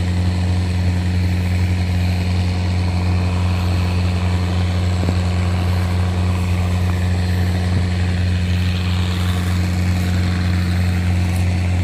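Kato crawler excavator's diesel engine running at a steady speed, an even low drone with no revving or load changes.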